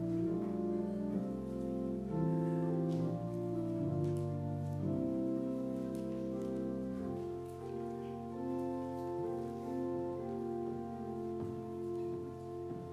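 Church organ playing slow music of long, steady held notes and chords.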